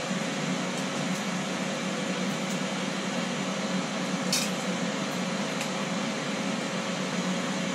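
Steady whirr and hum of a preheated Ninja Foodi XL Grill's fan running, with one short light click about four seconds in.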